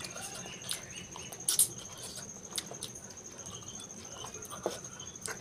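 Close-miked eating sounds: chewing with wet mouth clicks and smacks, the loudest about a second and a half in. A faint steady high-pitched whine runs underneath.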